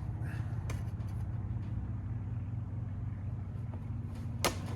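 A steady low mechanical hum with a few sharp clicks and knocks from handling the seat parts, the loudest click near the end.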